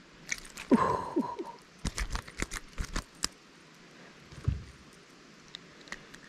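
Handling noise from a freshly caught bluegill being held and unhooked: a quick run of sharp clicks and taps, then a single low thump.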